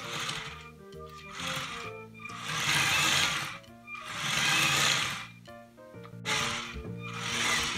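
Small electric motors of a LEGO Boost Vernie robot whirring in repeated bursts, about four or five times, as the robot turns on its tracked base, over steady background music.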